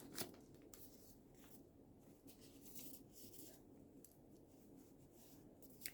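Near silence: room tone with a few faint scattered ticks and rustles.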